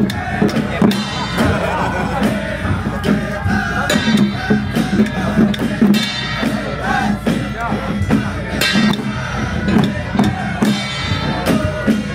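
Loud music with singing and a drum beat.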